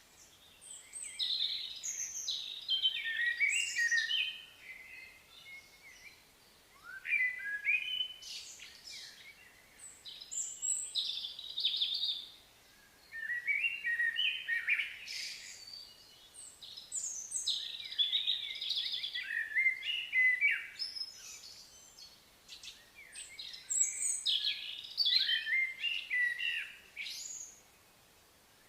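Bird song: about five bouts of quick, varied chirping phrases, each a few seconds long, with short pauses between them.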